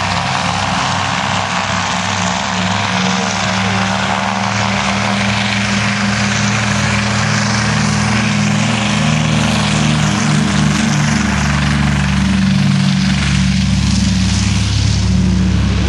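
Douglas DC-3's twin radial piston engines running at high power as the plane rolls along the airfield on its take-off run, slowly growing louder as it comes closer.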